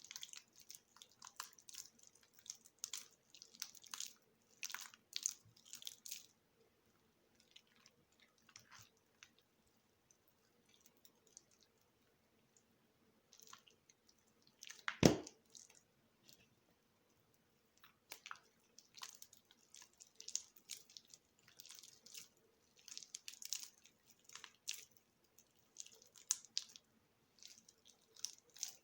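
A bar of soap gone mushy from a week soaking in water being cut, giving many short soft strokes in two runs with a quieter pause between. One much louder knock comes about halfway.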